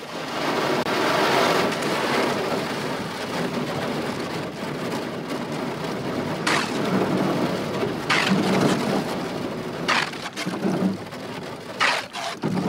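Thin skim ice crackling and crunching as a canoe hull pushes through it, a continuous dense crackle with sharper single cracks every second or two in the second half.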